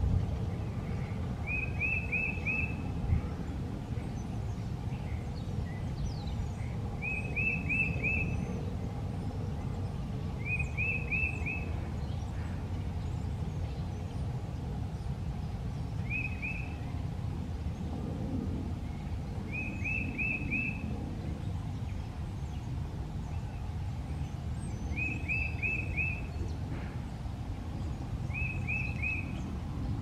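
Tufted titmouse singing: seven short phrases of three or four quick notes each, spaced a few seconds apart, over a steady low rumble.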